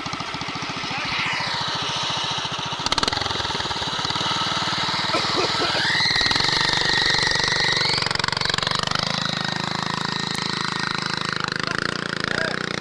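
Honda GX340 11 hp single-cylinder engine on a homemade go-kart running with a fast, even beat, its pitch rising about halfway through as it is revved, holding, then easing back slightly.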